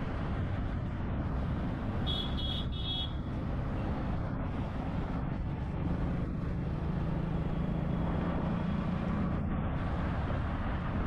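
Steady road traffic noise with vehicle engines running, and a few short horn beeps about two seconds in. A lower engine hum swells in the second half.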